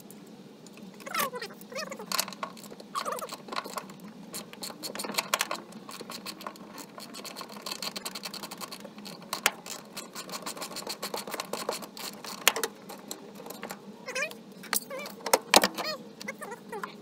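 Hand tools and plastic interior trim being pried and worked loose in the rear of a 1992 Nissan 240SX: dense, irregular clicks, knocks and metallic rattles, with a few short squeaks.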